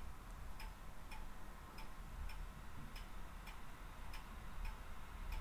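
Steady, faint ticking, about two ticks a second, over a low steady hum.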